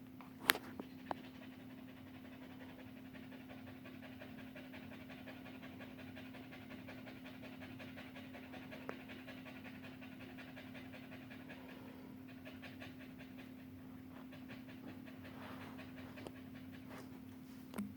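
Dog panting rapidly and steadily, tired out after a run. A sharp click sounds about half a second in.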